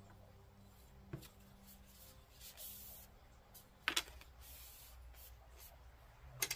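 Faint handling sounds of carbon arrow shafts: light clicks as a shaft knocks against things and is laid down on the workbench, a sharper one about four seconds in and two close together near the end, with a soft rustle of a paper towel wiping a shaft.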